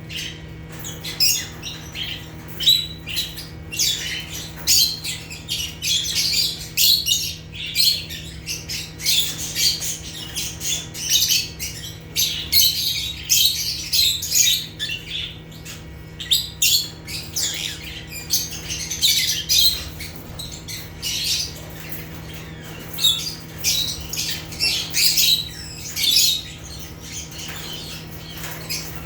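Lovebirds (Agapornis) chattering: a dense, unbroken stream of shrill chirps and squawks, several birds calling over one another.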